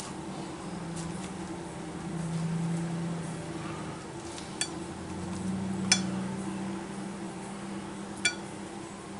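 A spoon clinking sharply against a plate three times, knocking off seeds scooped from a halved spaghetti squash, over a steady low hum.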